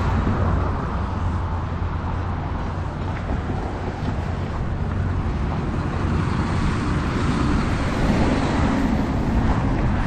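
Gusting wind buffeting a GoPro's microphone, a steady low rumble, mixed with road traffic noise.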